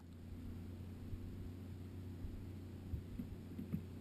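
A steady low hum with a few faint soft knocks.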